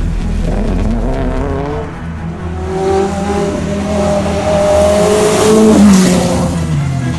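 Rally car engines revving hard through the gears, the pitch climbing and dropping between shifts. Near the end a Renault 5 Turbo passes close, loudest as it goes by, and its engine note falls as it pulls away.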